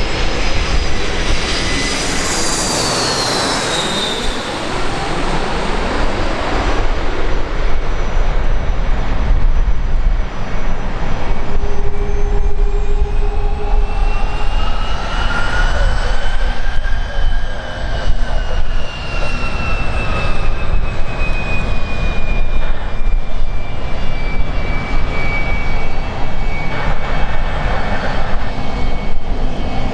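Airliner engines running loudly at close range: a steady roar and rumble that grows louder a few seconds in. A high whine drops in pitch about three seconds in, and further whines rise and then fall in pitch through the middle.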